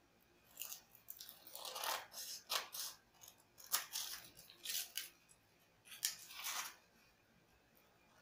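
Scissors snipping through folded coloured paper in a series of short cuts, then stopping shortly before the end.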